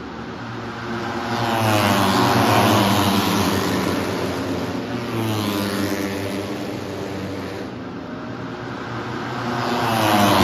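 Racing motorcycles passing at speed along the main straight. The engine note swells and then drops in pitch as each goes by, loudest about two seconds in and again near the end.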